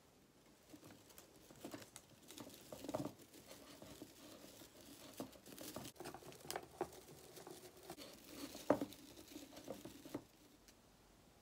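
Rustling and crinkling of an artificial Christmas tree's plastic needles as a string of wire fairy lights is wound around its branches, with scattered small clicks and taps. It is faint and irregular, and stops near the end.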